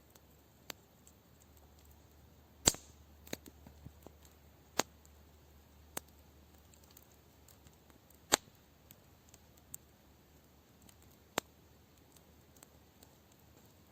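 Wood fire crackling: scattered sharp pops of burning wood, irregularly a second or two apart, over a faint steady hiss.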